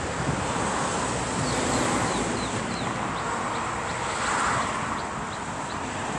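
Steady traffic noise, with a run of short, high falling chirps from small birds through the middle.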